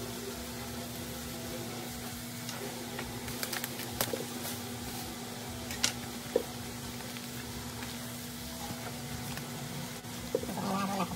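Bubble wrap and plastic packaging being handled and pulled off a taped cardboard parcel: soft crinkling with a few sharp clicks and taps, over a steady low hum.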